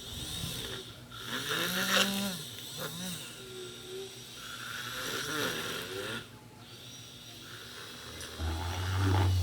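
Rasping sounds that rise and fall in pitch, then, about eight seconds in, a homemade hand drill's RS755 DC motor starts up with a low steady hum.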